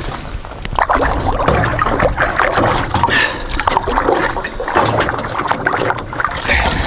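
Water splashing and trickling, a busy run of small splashes and drips that picks up about a second in.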